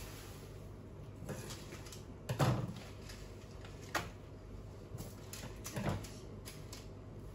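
A few scattered soft knocks and thuds, the loudest about two and a half seconds in, over a steady low hum.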